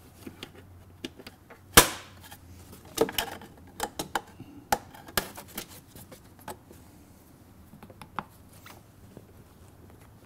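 Sharp clicks and light metallic clatter from the spring clamps and sheet-metal lid of a Mercedes diesel's round air filter housing being fastened by hand. There is one loud snap about two seconds in, then a quick run of smaller clicks and knocks.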